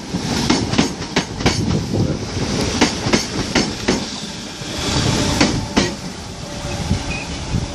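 A Merseyrail electric multiple-unit train runs close past along the platform with a steady rumble, its wheels clacking over rail joints in a string of sharp clicks. A rush of noise swells around five seconds in.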